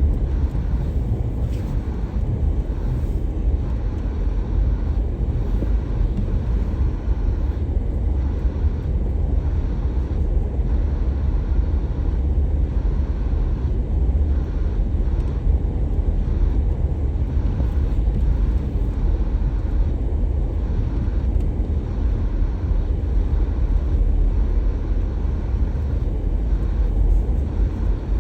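Steady low rumble of a car being driven: engine and road noise with no breaks or sudden events.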